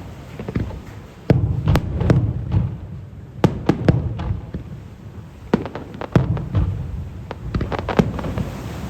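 Aerial fireworks shells bursting overhead: a run of sharp booms, clustered around one to two seconds in, again around three and a half seconds and six seconds, and several close together near the end, each trailing off in a low rumble.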